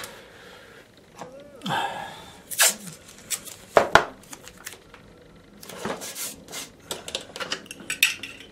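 Metal bulldog clips being handled and removed from an easel board, with clicks, clinks and knocks and a short rustle of watercolour paper.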